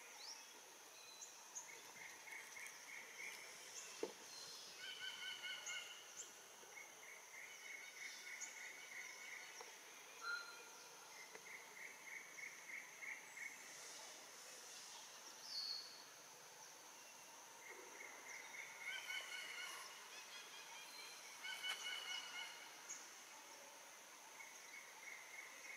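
Faint forest ambience: birds calling again and again in short phrases of rapid pulsed notes, over a steady high insect whine. A single sharp click about four seconds in.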